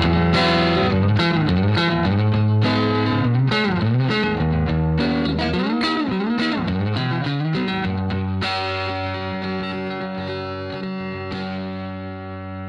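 Electric guitar instrumental with effects: quick picked notes and chords, then held chords ringing out from about two thirds of the way in, fading out toward the end.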